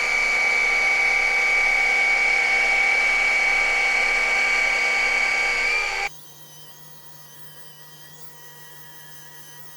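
Handheld electric glass-scratch grinder/polisher running against a glass pane with a steady high-pitched whine, switched off about six seconds in, after which only a faint steady hum remains.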